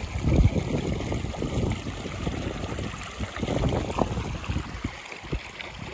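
Shallow stream water trickling and lapping, with irregular gusts of wind buffeting the microphone.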